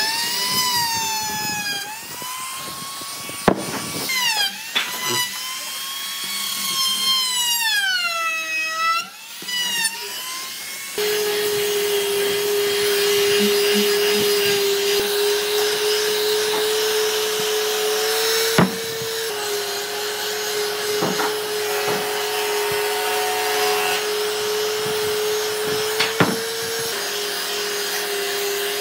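Makita trim router whining as it cuts into a solid wood block, its pitch dipping and recovering as the bit takes load. About eleven seconds in this gives way to a palm sander running steadily, its sandpaper rasping on the wood, with a few sharp knocks.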